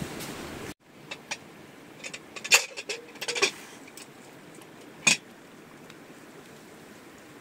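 Louder outdoor sound cuts off abruptly under a second in. Then come a few sharp clinks and knocks of hard objects being handled, clustered between about two and three and a half seconds in with the loudest near two and a half seconds, and one more near five seconds, over a faint steady hiss.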